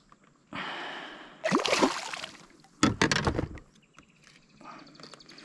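Water splashing and sloshing beside a kayak in three bursts about a second apart, then a fainter one near the end.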